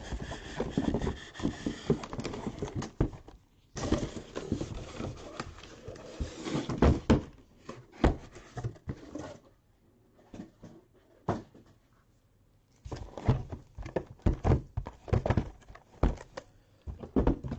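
Cardboard card boxes and cardboard filler being handled on a desk: scraping and rustling, with many small knocks and taps. It goes briefly quiet about ten seconds in before the tapping starts again.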